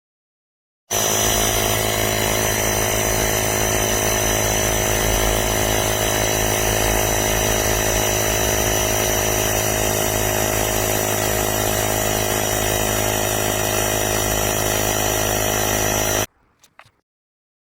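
Wistrue battery-powered mini air compressor (tyre inflator) running steadily for about fifteen seconds, a loud motor buzz with a high whine, switching on and off abruptly.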